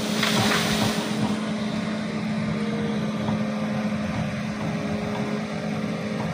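Kobelco hydraulic excavator's diesel engine running steadily, with a brief crash and rustle of fronds and foliage within the first second as a pushed-over oil palm comes down.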